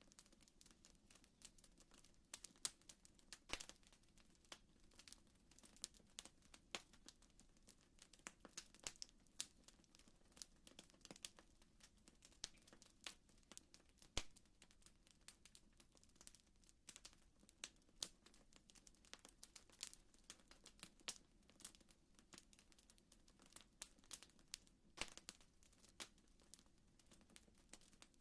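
Faint crackling fire: irregular small pops and snaps, several a second, over a low steady hiss.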